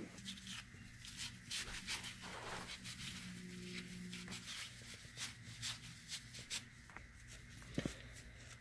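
Shop rag rubbing over a small rubber tie rod dust cover as it is wiped clean with pre-cleaner: a quick run of short, scratchy rubbing strokes, with a light knock near the end.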